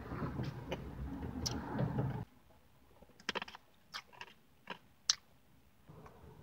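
Close-miked chewing of soft food for about two seconds, stopping abruptly, followed by several sharp, wet mouth clicks and smacks.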